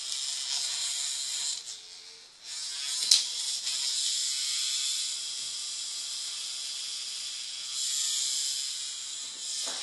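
Hexbug vibrating toy bug buzzing as it skitters over a tile floor. The buzz drops away briefly about two seconds in, and a single sharp click comes just after three seconds before the buzzing runs on.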